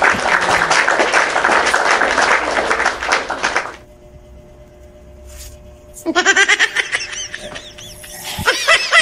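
Laughter, probably an edited-in comic sound effect: a loud, dense burst of laughing for the first few seconds, a short lull with a faint steady hum, then rapid high-pitched giggling from about six seconds in.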